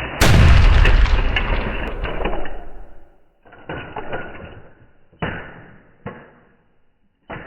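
A train's running rumble is cut off by a sudden, very loud explosion about a quarter second in, which fades over about two seconds. A few shorter crashes follow at intervals, the last near the end.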